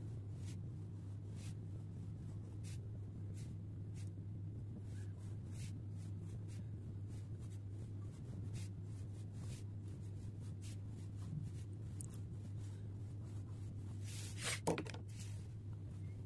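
Fineliner pen scratching and ticking on paper in short ink strokes, over a steady low hum. Near the end comes one louder, longer scrape.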